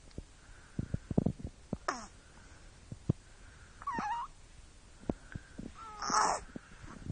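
Young baby waking, making three short cooing squeals about two seconds apart, the last one the loudest, with soft knocks and bumps in between.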